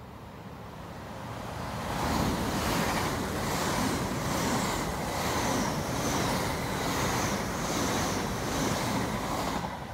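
Great Western Railway Class 800 IET train passing through the station at speed. The rush of wheels and air swells as it approaches, then stays loud with a rhythmic beat as the coaches go by, and cuts off suddenly near the end as the last coach clears.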